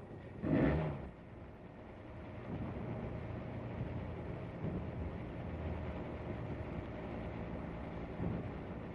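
Two-cylinder truck engine driving the tramway cable winch, running steadily after a short voice near the start.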